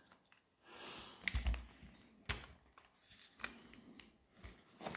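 Handling of a disassembled cordless impact driver: a few scattered sharp clicks and a soft knock as the plastic housing and the motor and switch assembly are lifted apart, with light rustling between.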